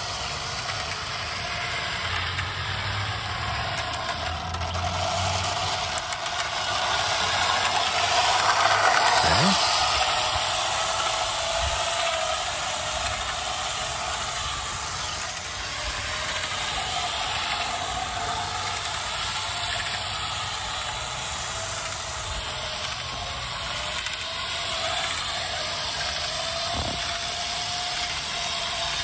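Lionel O gauge model train running along metal track, a steady whine with the clatter of its wheels on the rails. It grows louder about eight seconds in, peaking around nine to ten seconds, then settles back.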